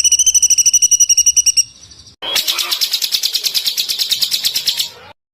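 Small songbird giving rapid trills. The first trill is a fast run of clear, high repeated notes. After a short pause about two seconds in, a second, harsher chattering trill follows and cuts off suddenly near the end.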